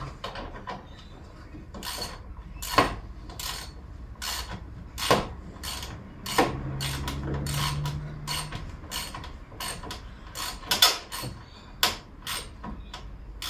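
Socket ratchet clicking as a bolt is tightened: sharp single clicks and short clusters, about one or two a second, in an uneven rhythm.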